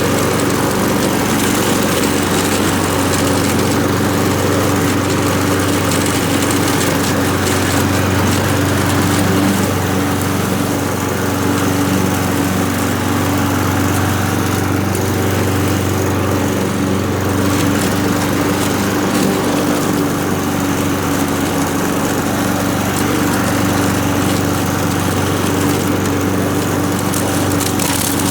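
Honda GCV160 single-cylinder four-stroke engine of a walk-behind lawn mower running steadily while it mulches leaves and grass.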